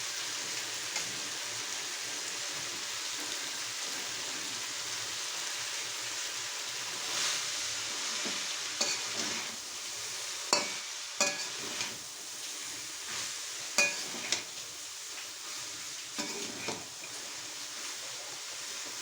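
Minced chicken and spices sizzling in a frying pan as shredded cabbage is stirred in. From about a third of the way in, the stirring utensil scrapes and knocks against the pan several times.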